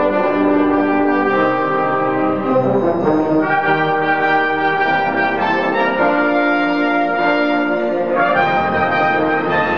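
Background music led by brass, slow sustained chords and held notes with an orchestral sound.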